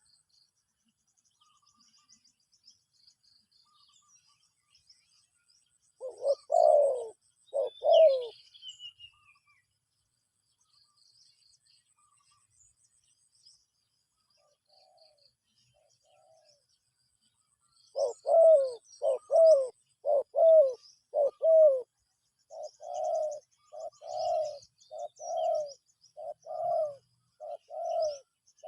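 Dove cooing: two low coos about six seconds in, then from about eighteen seconds a long run of repeated coos, roughly one a second. Faint high chirps of small birds behind.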